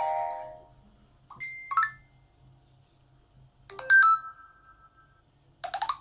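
Alcatel 3V smartphone's stock notification tones previewed one after another through its speaker: four short electronic tones about one and a half to two seconds apart. The third rings out longest, about a second and a half, and the last is a quick run of rising notes.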